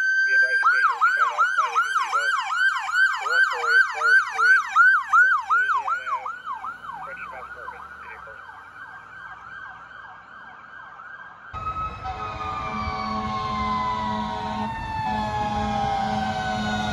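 An electronic siren on a police vehicle sounds a fast yelp, about four sweeps a second, and fades as the vehicle moves away. Then a mechanical siren winds down in a long falling tone, with an air horn blaring steadily over it.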